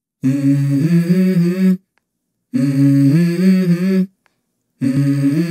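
A wordless hummed vocal as intro music: three phrases of about a second and a half each, separated by short silences. Each phrase steps between two or three low notes.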